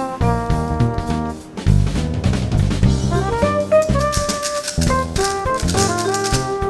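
Background music: a melody of held notes over a drum-kit beat.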